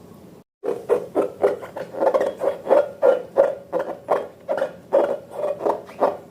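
Slime being squeezed and worked by hand, making a quick run of wet squelching pops about three a second that starts after a brief silence.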